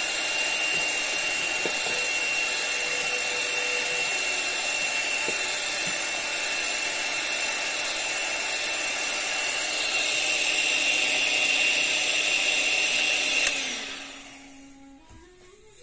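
Electric hand mixer running steadily with a high whine, its beaters whisking egg and sugar batter in a steel bowl. It grows a little louder about ten seconds in, then is switched off with a click near the end and winds down.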